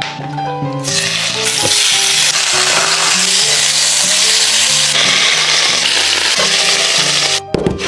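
Chicken pieces searing in hot oil in a cast-iron skillet, a steady sizzle that starts about a second in and cuts off abruptly shortly before the end.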